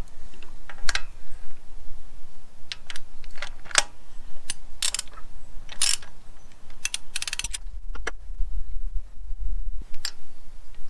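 Ratchet wrench clicking and tool clinks on a Honda CB750 cylinder head while the spark plugs are taken out. The clicks are scattered, with a quick even run of ratchet clicks about seven seconds in, followed by a low rumble lasting about two seconds.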